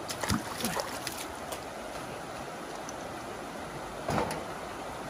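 River water flowing over rocks, a steady rushing hiss, with a few light knocks early and a louder clunk about four seconds in as a plastic crate is set down in a metal trailer.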